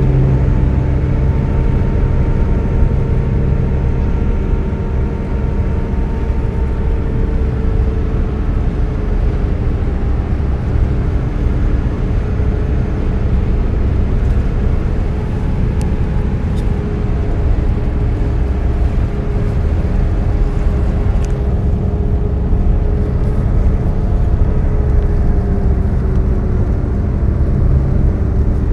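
Steady road noise of a car driving at highway speed, heard from inside the cabin: a continuous low rumble of tyres and engine, with a faint hum that drifts slightly in pitch.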